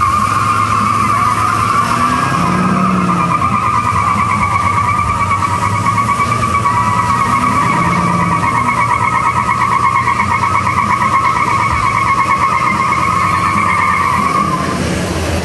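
Pickup truck doing a burnout: its rear tyres squeal loudly and steadily, with a slight warble, over the engine's low rumble. The squeal stops about a second before the end.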